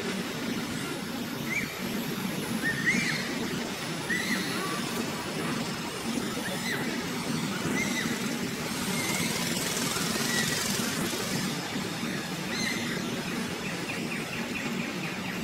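Outdoor ambience: a steady low rumble under short high chirps that repeat roughly once a second. About nine seconds in, a soft hiss rises for a couple of seconds, and near the end there is a fast run of ticks.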